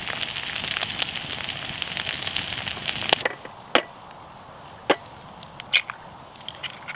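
Diced bacon and potato sizzling in a Dutch oven. After about three seconds this gives way to a few sharp taps of eggs being cracked on the rim of a steel mug.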